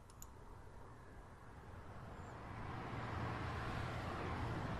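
Ambience sound-effect recording being previewed: a steady wash of noise with a low rumble that fades up over the first three seconds, then holds.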